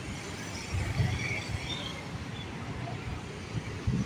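Street ambience: a low rumble of road traffic, with two dull thumps, about a second in and just before the end.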